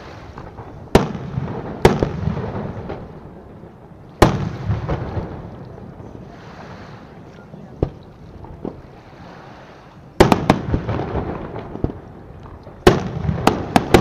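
Aerial firework shells bursting in a display: about ten sharp bangs at irregular intervals, each trailing off in a long echoing rumble, with a quieter spell in the middle and quick clusters of bangs around ten seconds in and near the end.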